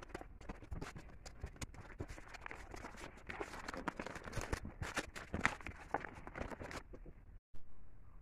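Brown kraft-paper mailer being cut open with scissors and handled: dense, irregular rustling and crinkling of paper. It breaks off abruptly about seven seconds in, leaving a faint hiss.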